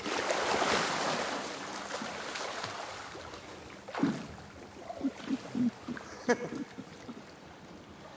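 A person plunging forward into flood water with a big splash that washes away over a couple of seconds, followed by a few shorter splashes from his swimming strokes.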